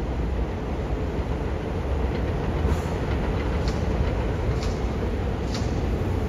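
R188 subway train running on the track with a steady low rumble; in the second half, four sharp clicks come about a second apart.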